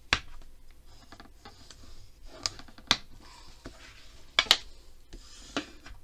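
A bone folder scraping along creases in folded manila file-folder card to press the folds flat, with several sharp clicks as the tool taps against the card and table.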